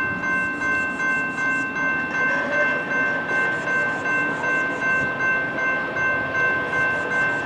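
Railroad grade-crossing warning bell ringing steadily, about two to three strikes a second with a held ringing tone. It signals that the crossing's warning has been activated for an approaching train.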